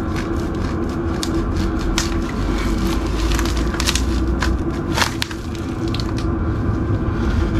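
Handheld electric saw running steadily as it cuts through 1-inch EVA foam floor tiles, with a rapid crackling from the blade in the foam and a few sharper cracks.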